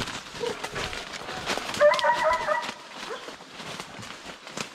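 Hunting dogs baying while trailing a wild boar, one long held bay about two seconds in, amid faint crackling.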